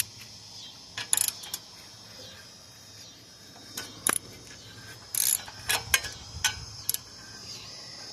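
Scattered metallic clicks and clinks of a hand tool turning out the bolts of a Kohler V-twin engine's sheet-metal shroud, about a dozen irregular clicks with short pauses between.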